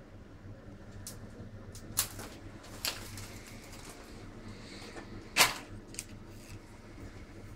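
Metal lathe workshop: a low steady hum with a few sharp knocks, the loudest about five and a half seconds in.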